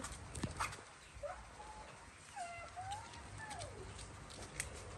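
Baby monkey calling: a few short calls that rise and fall in pitch, between about one and three and a half seconds in, with a couple of sharp clicks near the start and near the end.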